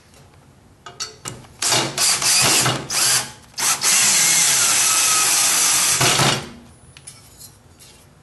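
Cordless drill with a socket in its chuck driving a nut or bolt on a steel bracket. It runs in several short bursts, then steadily for about two and a half seconds, then stops.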